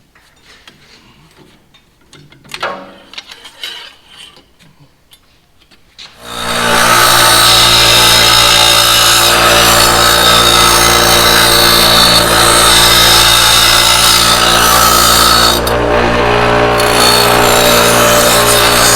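A few faint handling knocks, then about six seconds in a power cutting tool starts up loud and runs steadily, cutting through a metal tractor throttle rod clamped in a vise. Its high, hissing edge drops away briefly about sixteen seconds in, then returns.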